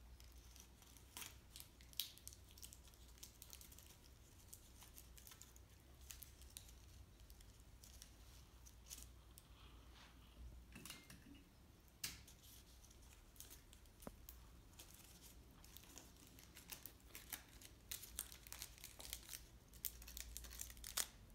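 Faint crinkling and rustling of paper being handled and stuck together with adhesive tape, with scattered small clicks and ticks over a low steady hum.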